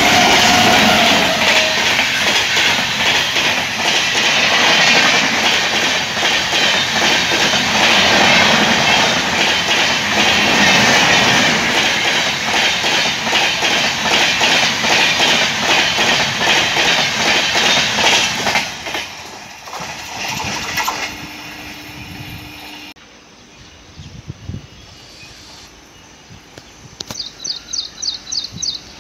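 Electric-hauled express passenger train passing close at speed: a fast, steady clickety-clack of coach wheels over the rail joints. About eighteen seconds in it drops away sharply as the last coaches go by. Near the end comes a quieter approaching train, with a short run of quick high ticks.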